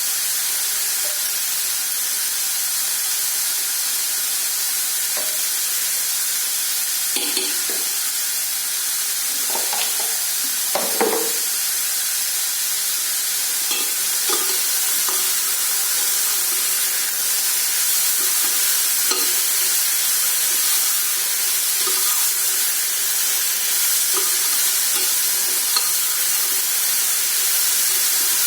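Besan kulcha frying in oil on a hot tawa: a steady sizzle, with a few light scrapes or taps around the middle.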